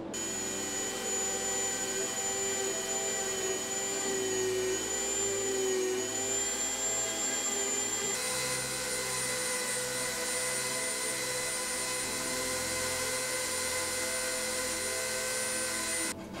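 Dremel rotary tool on a flex shaft running at high speed, its small bit grinding into white pine, a steady high whine that wavers slightly in pitch. The tone shifts abruptly about halfway through and cuts off just before the end.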